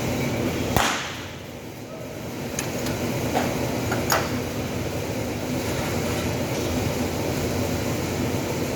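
Stud welding on sheet-metal panel doors: one sharp crack about a second in, then a few fainter clicks, over a steady machine hum and workshop noise.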